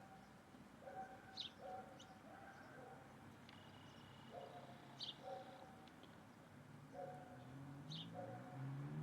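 Birds calling faintly: a short low call repeating about once a second, with brief high chirps between.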